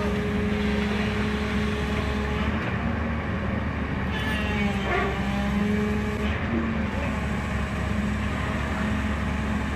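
A vehicle engine running steadily with a constant low hum and road or motor noise; its tone drops out and returns a few times, with a brief wavering sound about halfway through.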